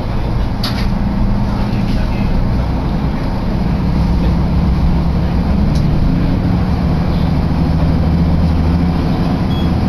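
Interior running noise of a diesel railcar under way: a steady low engine hum over rail rumble, with the engine note shifting partway through and a single click about a second in.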